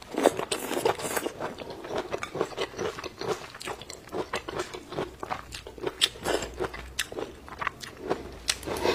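A person chewing and crunching food close to a clip-on microphone, with irregular wet clicks and crackles of the bites.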